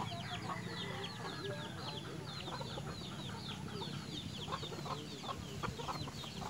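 Chicken chicks peeping without pause, many short, high, falling peeps several a second, with low clucks from adult chickens among them.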